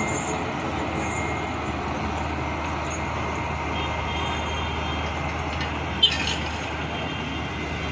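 Steady low rumble of vehicle engines, with one short, sharp sound about six seconds in.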